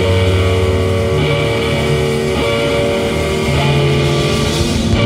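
Three-piece math-punk band playing live: electric guitar and bass holding chords over drums.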